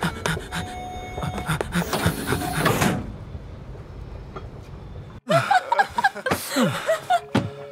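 Metro platform rumble with a burst of hissing around two seconds in, then, after a sudden cut about five seconds in, several people laughing inside the train.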